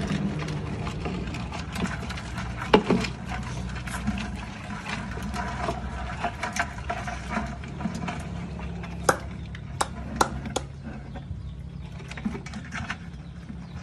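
Water sloshing and splashing in a plastic drum as a hand gropes for crabs, with scattered sharp knocks and clicks against the plastic, the loudest about three seconds in and a few more around nine to ten seconds; a steady low hum runs underneath.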